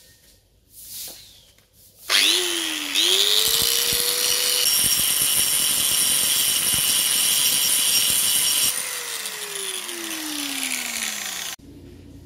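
Handheld angle grinder switched on about two seconds in and spinning up, then grinding the end of a metal part round, throwing sparks, for about six seconds. It is then switched off and winds down with a falling whine, stopping shortly before the end.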